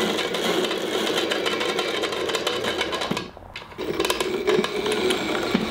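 Electric ATV conversion's motor driving the rear axle through a loose roller chain: a loud, dense clattering rattle of chain and sprockets. It stops briefly a little after three seconds in and then starts again.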